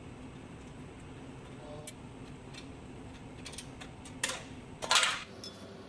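Loose steel sockets and bolts handled on a concrete floor: scattered light metallic clicks, then a short, louder clatter about five seconds in, over a steady low hum.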